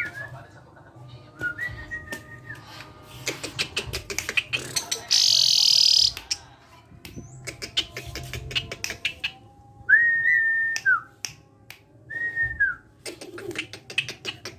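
Asian pied starling calling: flat whistled notes lasting about a second, many sharp clicks, and a harsh rasping burst about five seconds in.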